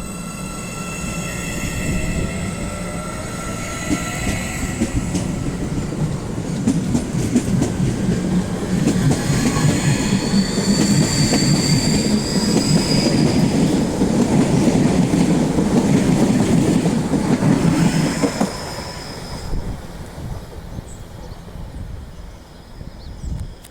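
Electric commuter train pulling out of a station: a rising motor whine as it gathers speed, then wheels rumbling and clattering over the rail joints with high wheel squeal, growing loud as the cars pass and falling away sharply near the end.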